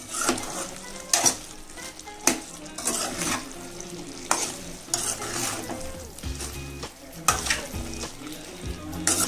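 A spoon stirring chicken curry in a metal kadai, scraping and knocking against the pan roughly once a second, over the steady sizzle of the masala frying.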